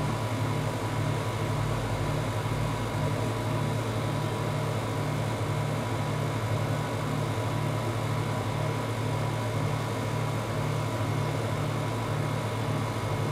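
Steady low mechanical hum with a faint constant high tone over it; the hum pulses slightly and regularly but never stops or changes.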